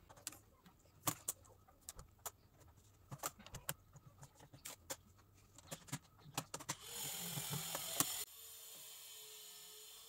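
Laptop keyboard being pressed down into its bay by hand: a run of irregular sharp plastic clicks as the keyboard and its keys are pushed home. About seven seconds in comes a loud hiss lasting about a second and a half.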